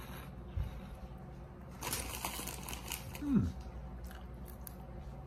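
Cheese puff crunching close to the mouth for about a second, followed by a short hum that falls in pitch, the loudest sound here.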